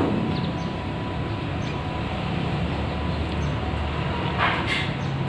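A steady low mechanical rumble with a faint steady hum above it, and a brief scratchy noise about four and a half seconds in.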